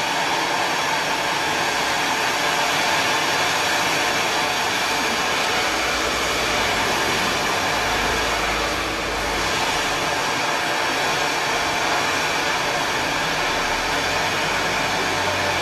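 Ground firework fountain spraying a column of sparks: a steady, loud hiss that dips briefly about nine seconds in.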